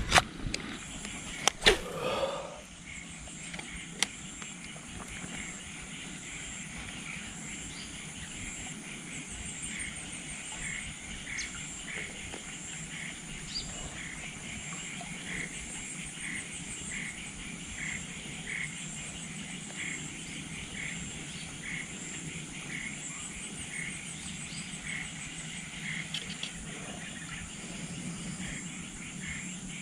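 A chorus of frogs and insects calling: a regular pulsed call about every three-quarters of a second over a steady high insect whine. A few sharp knocks in the first couple of seconds, and one more a little later.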